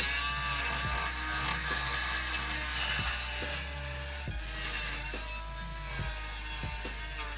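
Background music with a steady beat and held bass notes, under a rasping, scraping noise.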